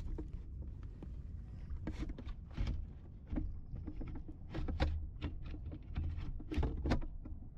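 Fishing boat at sea: a steady low rumble with scattered short knocks and clicks, the loudest about five and seven seconds in.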